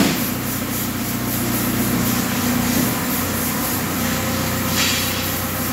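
Tractor diesel engine running steadily at an even speed, with a short hiss about five seconds in.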